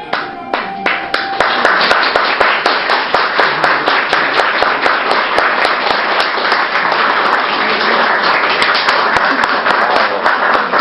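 Audience applauding: a few scattered claps at first, swelling after about a second and a half into steady, dense clapping.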